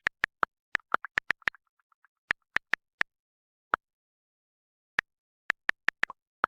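Short, sharp digital clicks from Messenger chat sound effects, about twenty in an irregular series: some in quick clusters, others a second or more apart.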